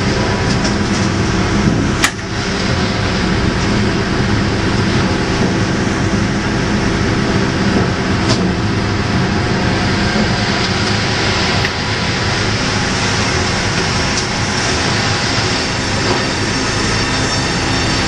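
Sawmill log-carriage and headrig machinery running steadily, a loud continuous mechanical noise with a steady motor hum. A sharp clank comes about two seconds in and a fainter one at about eight seconds.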